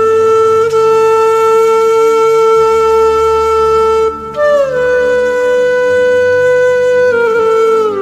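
Background music: a wind instrument plays long held notes, sliding up to a slightly higher note about four seconds in and gliding down near the end, over a low drone.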